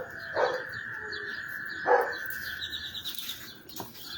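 A chorus of frogs after heavy rain: a steady, high trilling drone. Louder single calls break in at the start, about half a second in and about two seconds in, and a rapid pulsing call comes near the end.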